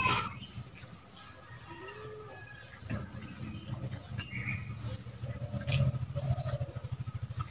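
Small birds chirping: short, high chirps that drop at the end, one every second or so, over a low hum that gets louder about three seconds in.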